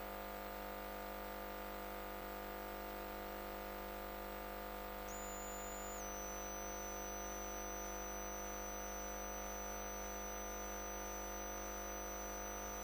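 Steady musical drone holding the same chord without change, with no beat or melody.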